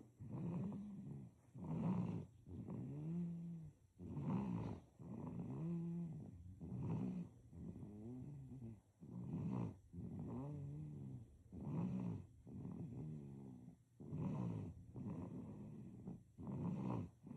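A sleeping baby snoring: a steady run of snoring breaths, in and out, about one a second, many with a low humming pitch that rises and falls.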